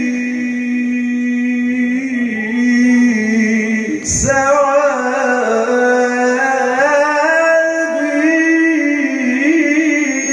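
A man singing Islamic praise poetry for the Prophet (madih) into a microphone, with a long held note and then winding ornamented runs on one vowel. There is a brief break about four seconds in, after which he comes back in on a higher line.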